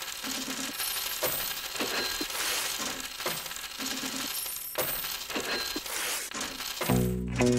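Gold Krugerrand coins poured in a stream onto a heap of coins on a cloth-covered table, clinking and jingling continuously as metal strikes metal. Music comes in near the end.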